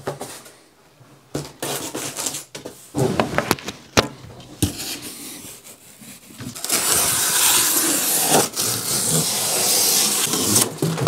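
A large cardboard sheet rustling and knocking against a glass tank as it is handled, with a few sharp knocks. From about seven seconds in, a utility knife slices along the cardboard in one steady scraping run lasting about four seconds.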